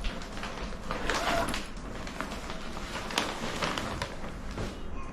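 Rustling of a dress's fabric and its wrapping being handled, with a few light clicks and taps.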